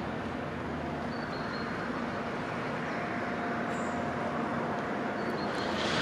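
Steady urban traffic noise, an even rumble and hiss with a faint steady hum, with a few faint short high tones over it.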